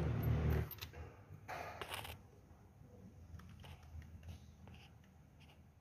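Rustling at first, then faint scattered small clicks and scrapes of a hand threading a new spark plug into the spark-plug hole of a Honda Vario 150 scooter engine.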